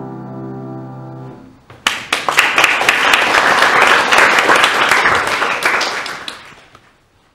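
The final chord of a grand piano rings and dies away, then an audience applauds for about four seconds before the clapping fades out.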